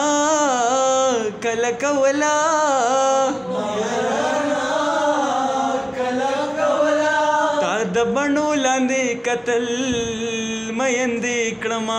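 A young man's voice singing a Pashto tapay unaccompanied: long held notes whose pitch bends and wavers, with short breaths between phrases.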